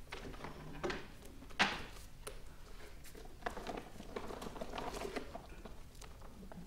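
Rustling and light knocks of people moving and handling things on a stage, with one sharper knock about a second and a half in.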